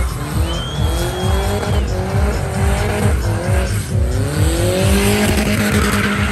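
Chevette with a turbocharged 1.8 VW AP engine revving hard over and over, its pitch rising and falling, while the rear tyres spin and squeal in a smoky burnout. The tyre squeal grows louder over the last couple of seconds.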